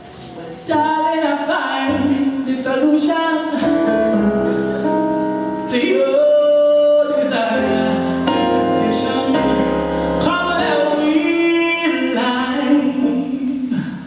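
Live small jazz band with a singer out front, backed by steel pans, drum kit, bass guitar and keyboard, playing a sung tune; the song closes on a held note and the band stops at the very end.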